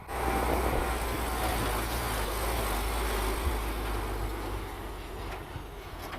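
Heavy diesel construction machinery running: a deep, steady engine rumble under a broad mechanical noise, easing slightly after about five seconds.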